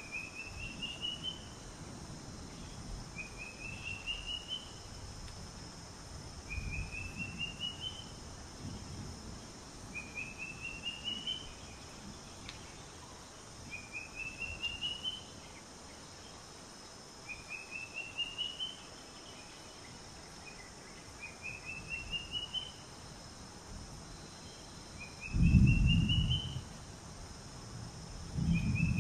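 A bird calling over and over: a quick, rising run of rapid notes, repeated about every three and a half seconds, over a steady high insect hum. Two loud low rumbles come near the end.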